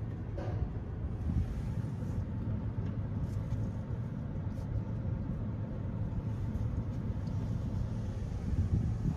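PDQ LaserWash 360 PLUS touch-free car wash machine running, heard from inside the car: a steady low rumble with a hiss over it as its overhead arm travels around the car.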